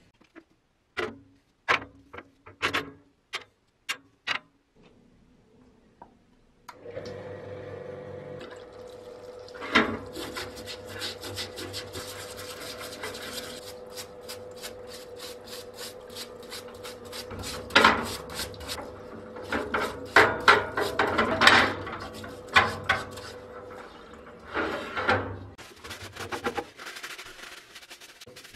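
Several sharp clinks and knocks of rusty cast-iron meat grinder parts handled on a parts washer's steel grate. About a quarter of the way in, the washer's pump starts with a steady hum and solvent runs through the flow-through bristle brush as it scrubs the rusted parts, with repeated scrubbing strokes. The pump stops near the end, leaving a few handling knocks.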